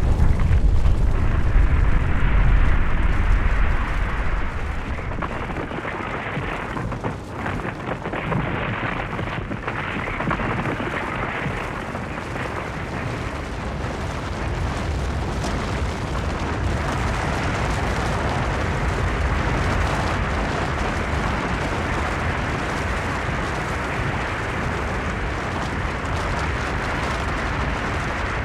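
Snow-and-rock avalanche: a heavy, deep rumble that eases after about four seconds into a steady rushing hiss of sliding snow and debris.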